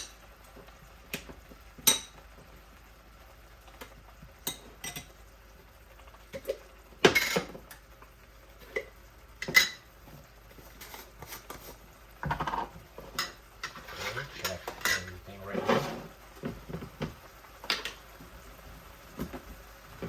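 A utensil knocks and scrapes against a cooking pan while stirring and breaking up fermented fish paste with the aromatics. Single sharp clinks come every couple of seconds, then a busier stretch of quick scraping and knocking about two-thirds of the way through.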